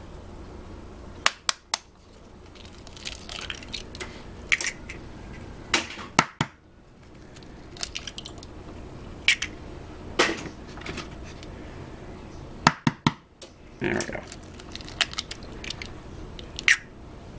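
Store-bought eggs being cracked and opened over a glass mixing bowl: clusters of sharp taps and crunches of eggshell, several times, with the shells pulled apart between them. A steady low hum runs underneath.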